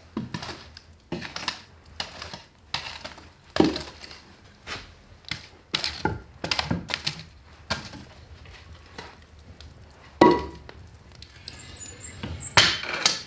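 Kitchen prep sounds: a knife chopping irregularly on a wooden cutting board, with a louder ringing clink of dishware about ten seconds in.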